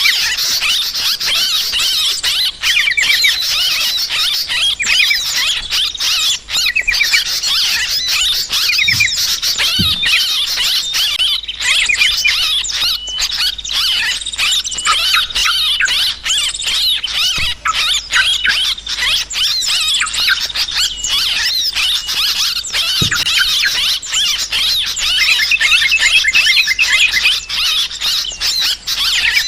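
Yellow-vented bulbuls chattering noisily and without pause: a dense, excited chorus of quick, high calls from many birds. This is the agitated 'ribut' chatter that bird trappers play as a lure.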